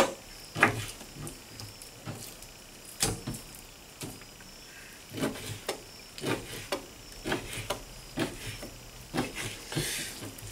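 Knife slicing through fish fillet and knocking on the cutting board, a series of irregular sharp knocks about once a second.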